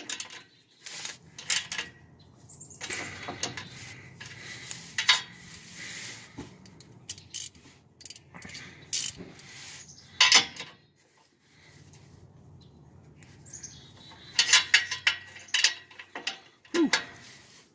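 Hand ratchet with a 14 mm socket clicking in short bursts, with metal tool clinks, as the bolts of the exhaust downpipe-to-transmission brace clamp are tightened a little at a time.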